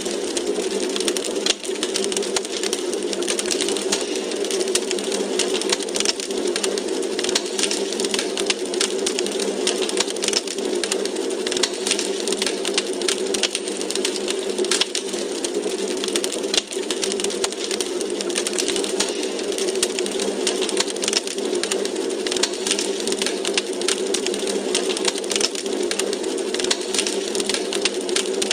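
Wood fire crackling in a fireplace: a dense, continuous run of small sharp pops and snaps over a steady hiss.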